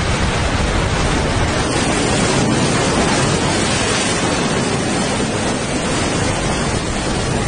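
Loud, steady rush of a fast torrent of muddy floodwater, an even noise with no breaks.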